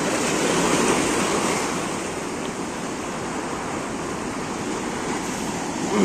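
Sea surf breaking and washing over shoreline rocks: a steady rush of waves that swells about a second in and then settles.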